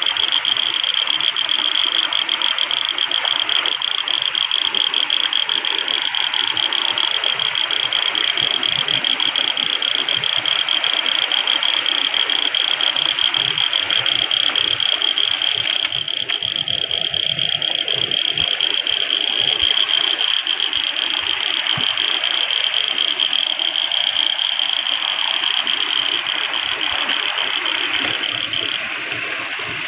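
Water rushing steadily down a narrow channel into a bamboo fish trap, with a loud, steady high-pitched pulsing buzz over it that stops near the end.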